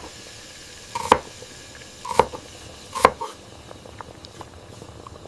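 Kitchen knife chopping on a cutting board: four distinct strikes about a second apart, each with a short ring, then a few faint light ticks.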